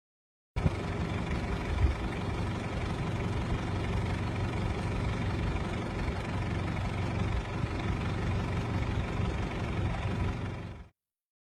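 Vehicle engine idling steadily with a low hum, starting and cutting off abruptly.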